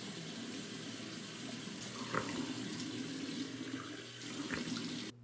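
Bathroom sink tap running steadily as water is splashed onto the face to rinse off cleanser, with a few splashes. The running water stops suddenly near the end.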